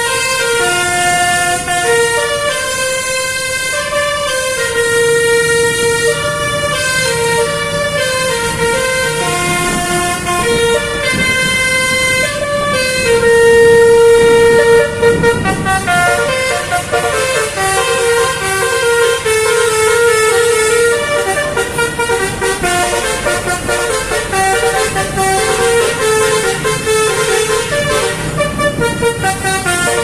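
Bus 'telolet' Basuri multi-tone air horn playing a long koplo-style melody, note after note with hardly a break, with one long, loud held note about halfway through.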